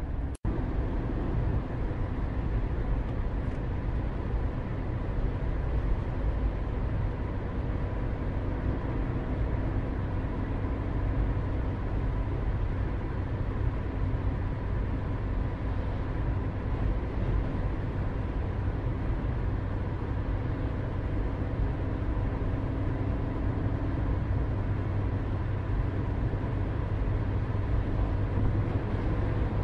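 Steady low outdoor rumble with a few faint steady hums in it; the sound drops out for an instant near the start.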